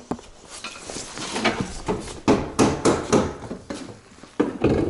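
Hammer blows on the sheet steel of a Nissan Bluebird's dented wheel arch, a string of unevenly spaced metallic strikes: the arch is being beaten back into rough shape.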